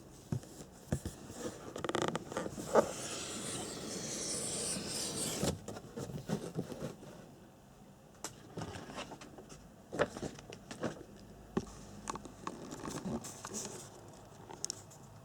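Packaging being handled during an unboxing: rubbing and scraping with scattered clicks and knocks. A steady rustle starts about two seconds in and stops sharply a few seconds later.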